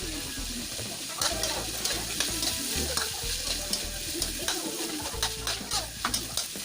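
Pork, garlic and onion sizzling in oil in a large wok while being stirred, with a utensil clacking and scraping against the pan many times from about a second in.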